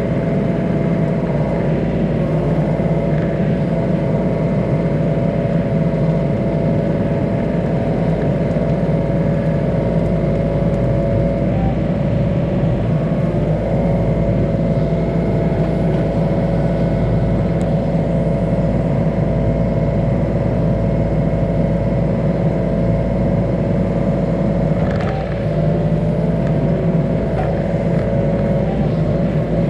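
Yanmar ViO35 mini excavator's three-cylinder diesel engine running steadily at working speed as the machine handles a freshly cut log.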